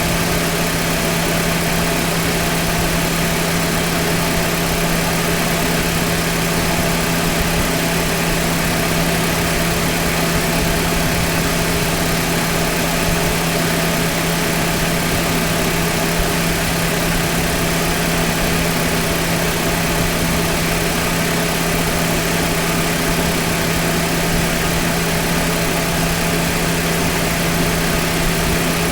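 Car engine idling steadily with the air conditioning running, a constant hum under an even mechanical noise.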